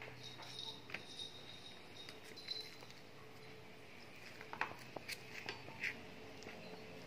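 Plastic spoon clicking and scraping against a metal food tin and clear plastic trays as wet cat food is dished out, with a quick cluster of sharper taps past the middle. Faint high-pitched mewing from young kittens runs through the first half.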